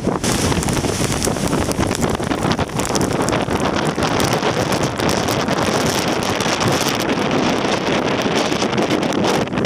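Strong typhoon wind buffeting the microphone: a loud, steady rush of wind noise crackling with constant small pops.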